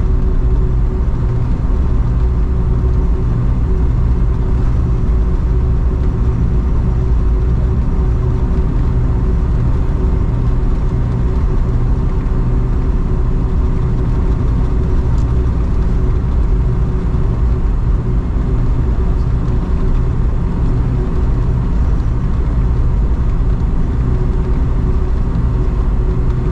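Cabin noise inside a Boeing 747-400 airliner: its four engines and the airflow make a loud, steady low rumble with a steady hum.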